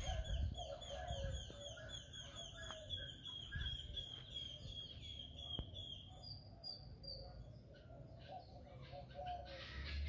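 Many birds calling from a tree canopy: a dense chatter of short, high, downward-sliding chirps, several a second, over lower warbling notes. It thins out about six seconds in.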